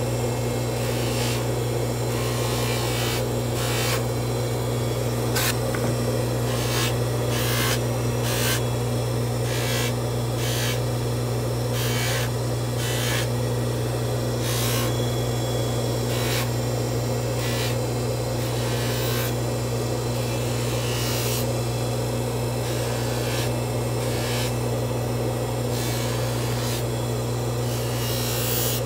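Bench polishing motor running with a steady hum while a hollow 14kt gold bangle is pressed against its spinning polishing wheel, giving short bursts of rubbing and scraping that come and go every second or so.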